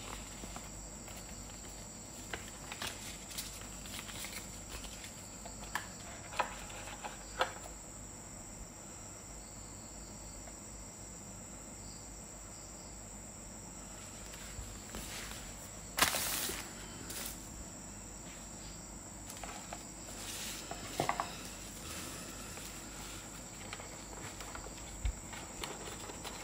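Hands handling a flashlight's cardboard gift box, paper manual and lanyard: scattered light clicks and taps, with one sharp knock about sixteen seconds in. Underneath runs a steady hiss with a thin high whine.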